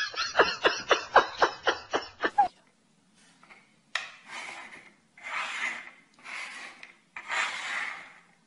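A fast series of clicks, about four a second, for two and a half seconds. Then four rasping scrapes, each about a second long.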